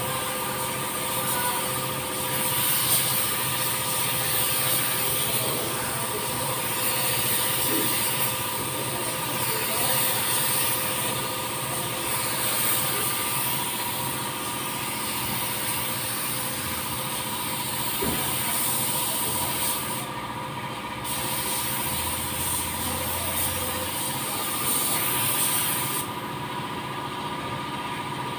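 Air-fed gravity-feed paint spray gun hissing as it sprays paint in passes, the hiss swelling and easing every couple of seconds, with a short break about two-thirds of the way in and a weaker stretch near the end. A steady mechanical hum runs underneath.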